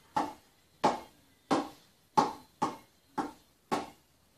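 A hand repeatedly slapping a spinning ball to keep it turning: sharp slaps about one every half second, roughly eight in all.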